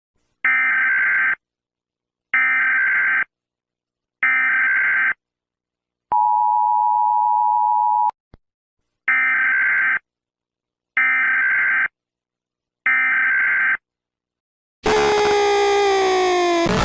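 Emergency Alert System tones: three short bursts of buzzy digital data (the SAME header), a steady two-note attention tone lasting about two seconds, a click, then three more identical data bursts marking the end of the message. About two seconds before the end a loud, harsh sound with a falling pitch starts and carries on.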